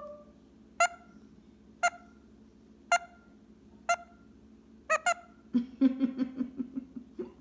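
Indian ringneck parrot making short, sharp "boop" calls about once a second, five in all, the last one a quick double, then low chattering near the end.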